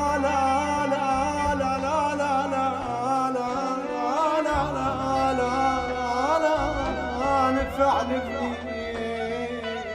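Middle Eastern music: a wavering, ornamented melody held over steady low sustained notes.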